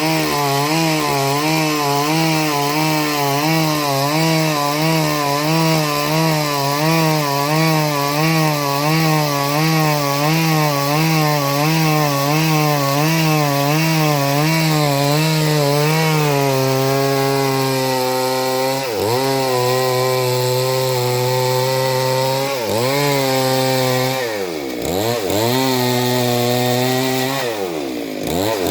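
Two-stroke chainsaw running at high revs, its pitch wavering evenly up and down for about the first half, then holding steadier with several brief sharp drops in pitch in the second half.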